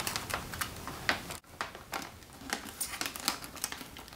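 Light rustling and scattered small clicks from cardboard, tape and wrappers being handled, with a brief cut to silence about a second and a half in.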